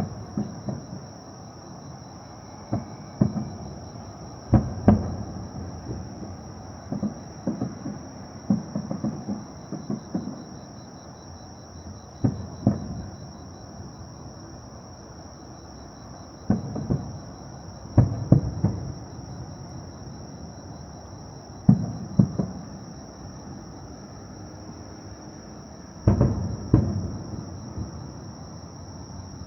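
Fireworks shells bursting at a distance: irregular booms, some single and some in quick runs, each ringing on briefly. A steady high thin tone runs underneath.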